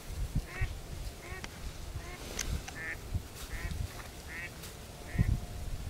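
Waterfowl giving short nasal calls over and over, about one every three-quarters of a second, with a few low thumps near the start and again near the end.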